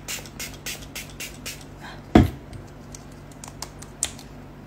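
Pump spray bottle of facial mist being pressed repeatedly: a quick run of short spray hisses, about four a second, over the first second and a half. A single thump about two seconds in is the loudest sound, followed near the end by a few faint taps.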